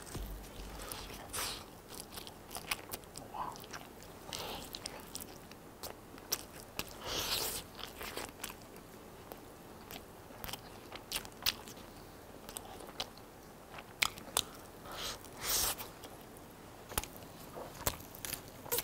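A person biting and chewing hand-torn pieces of roast leg of lamb, with irregular crunches and clicks as cartilage is chewed.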